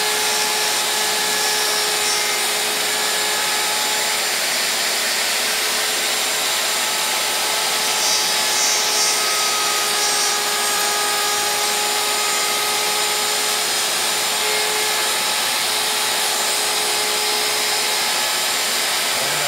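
Handheld router running steadily while cutting into a wooden drawer board, guided along the finger template of a dovetail jig: a steady motor whine over the hiss of the bit chewing wood, briefly a little louder about eight seconds in.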